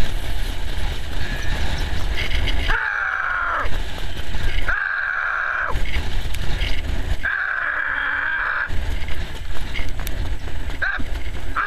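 Wind rushing over the microphone of a camera riding on a harness-racing sulky at trotting speed, a steady heavy rumble mixed with the rattle of the cart. Three times a harsher, higher noise lasting about a second rises over it.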